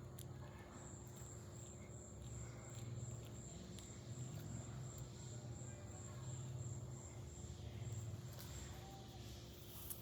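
Faint outdoor background with a high-pitched, evenly pulsing insect call, about three pulses a second, over a low rumble and a steady low hum.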